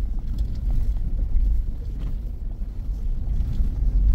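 Vehicle driving slowly over a rough, muddy dirt road, heard from inside the cab: a steady low rumble of engine and tyres with small knocks from the bumps.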